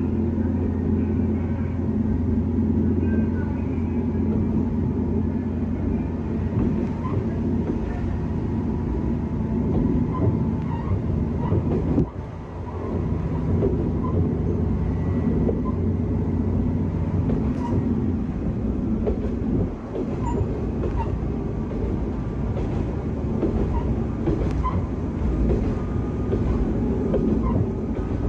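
Kanto Railway 2000-series diesel railcar under way: its diesel engine runs with a steady low hum over rail noise and light clicks of the wheels over the track. The engine note drops off briefly about twelve seconds in and shifts again around eighteen to twenty seconds.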